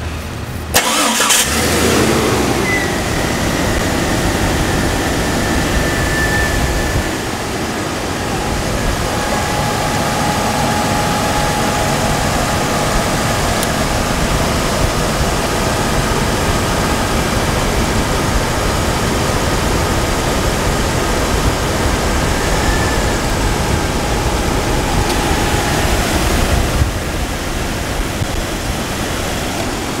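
2001 Jeep Cherokee engine started about a second in, then running steadily at idle. The A/C is switched on, but the compressor clutch is not engaging.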